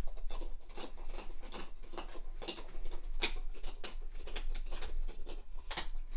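A dog chewing on a toy ball: irregular small clicks and crackles, several a second, with a few sharper ones.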